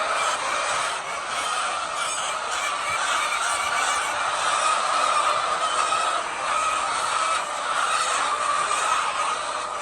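A flock of chickens giving a dense, continuous din of overlapping clucking and calling, with no single bird standing out.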